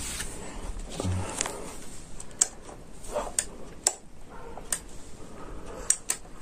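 Wall light switch flicked repeatedly with the power out, giving a run of sharp clicks at uneven gaps, two close together near the end. A dull thump comes about a second in.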